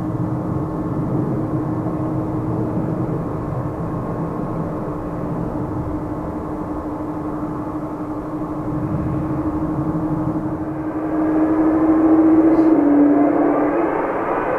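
Jet engines of a Japan Airlines Boeing 777 running at low power while it taxis: a steady rush with a held whining tone. The sound grows louder in the last few seconds, and a rising whine starts near the end as the engines begin to spool up.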